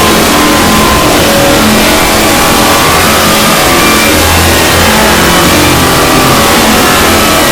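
Very loud, heavily distorted remix audio: a harsh buzzing tone that steps from pitch to pitch every second or so over a dense wash of noise.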